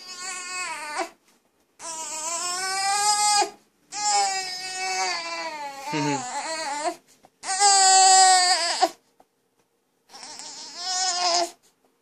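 Young child crying: a series of about five long, high-pitched wails with short breaks for breath between them.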